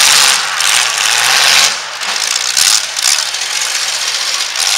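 Demolition derby trucks' engines running and revving hard, a loud, rough din that rises and falls, with one dipping briefly about two seconds in.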